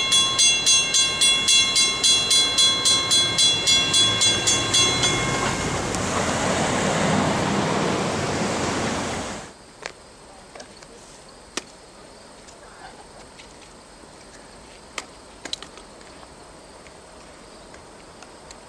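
Grade-crossing warning bell ringing at about three strikes a second as the crossing gates rise, stopping about five seconds in. A vehicle then drives past, its rushing noise swelling before the sound cuts off abruptly, leaving faint outdoor ambience with a few light clicks.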